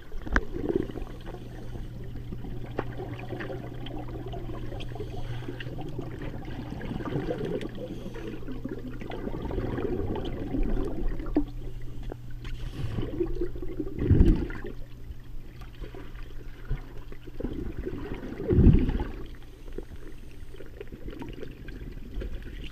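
Muffled underwater sound of a swimming pool heard from below the surface: water swishing and gurgling over a steady low hum, with two louder bubbling gushes about 14 and 19 seconds in.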